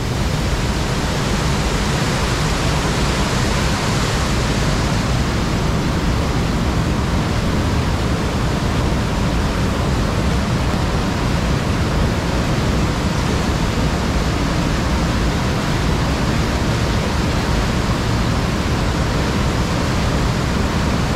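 Rushing creek water: a loud, steady, unbroken hiss with no separate splashes or other events.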